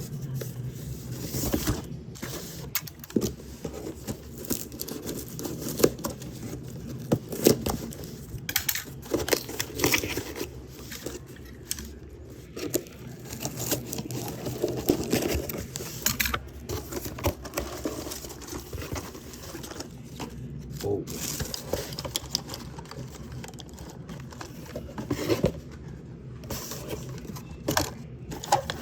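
Toy packaging being handled and opened: crinkling plastic and tearing and scraping of the packing, with many irregular clicks and knocks.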